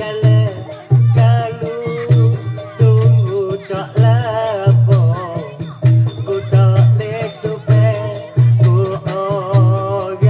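Traditional Malay wayang kulit ensemble music: a wavering, bending reed-pipe melody over a steady, repeating low drum beat.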